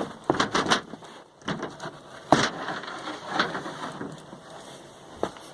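Irregular knocks and clatters of handling, several in the first second and then a few more spread apart, the loudest about two and a half seconds in.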